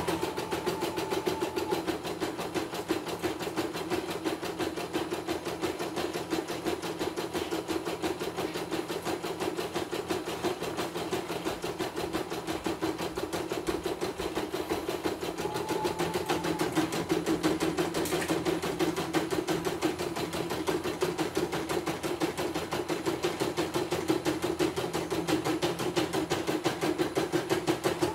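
CNY E900 portable embroidery machine stitching a design at speed: a rapid, even clatter of the needle bar and hoop drive.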